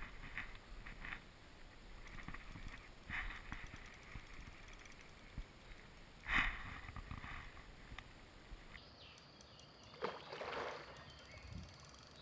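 Quiet lakeside ambience with a few short splashes and knocks; the loudest, about six seconds in, is a carp rolling at the surface of the lake.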